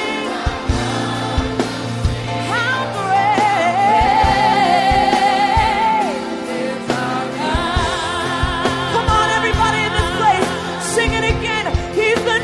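Gospel worship music: singing with long, wavering held notes over a band with drums.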